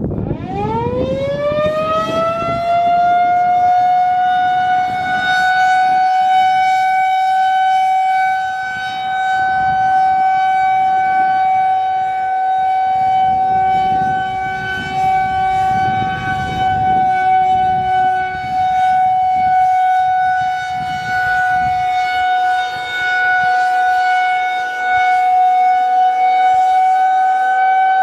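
Federal Signal 2001-130 rotating electromechanical warning siren winding up from a standstill over the first few seconds, then holding one steady tone for its one-minute alert, swelling and fading in loudness as the head rotates. Wind rumbles on the microphone underneath.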